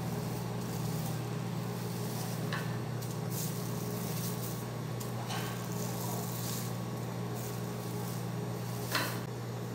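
Steady low hum, with faint crinkles of plastic film as hands press biscuit dough flat under it on a stone counter, and a sharper crinkle near the end.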